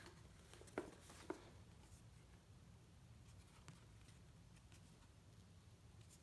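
Mostly near silence: faint handling of a paper mailing envelope and the watch's box, with a couple of soft rustles and clicks in the first second and a half.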